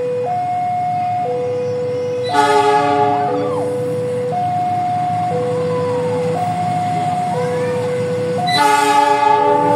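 Railway level-crossing warning alarm sounding a steady two-tone hi-lo pattern, switching tone about once a second. Over it a train horn blows twice, a chord of several tones lasting about a second each time, about two seconds in and again near the end.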